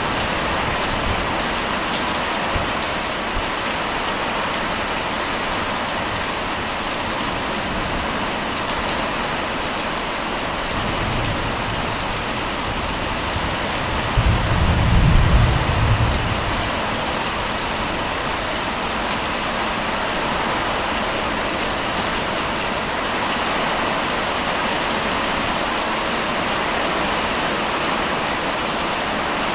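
Heavy rain pouring down steadily, with a low rumble of thunder about halfway through that swells and fades over a couple of seconds.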